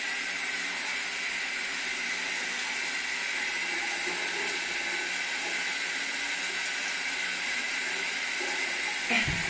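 Shower running: a steady hiss of water spray.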